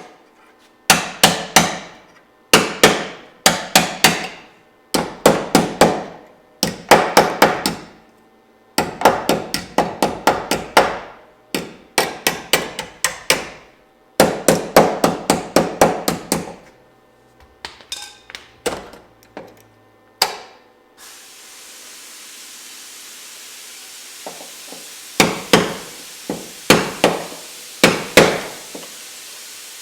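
Hammer blows on the truck's sheet-metal body panels, landing in quick bursts of several ringing strikes with short pauses between bursts. A steady hiss starts about two-thirds of the way through while the hammering carries on.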